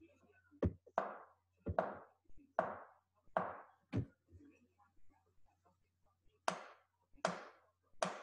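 A spoon knocking on a wooden board: about six hollow knocks in the first four seconds, then, after a short pause, four sharper, brighter knocks.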